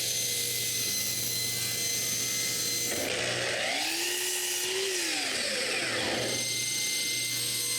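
Power woodworking tool running and cutting a small block of basswood: a steady hiss with a pitch that rises and then falls again about halfway through.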